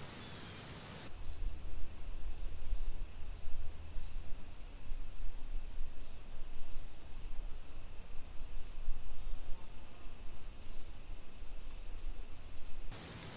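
Insect chorus: a steady high trill over a lower, evenly pulsing call, cutting in about a second in and cutting off abruptly shortly before the end, over a low, uneven rumble.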